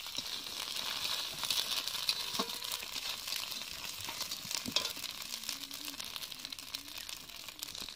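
Food frying with a steady sizzle in a steel kadai over a wood fire. A steel spatula stirs it, with a couple of sharp clinks against the pan.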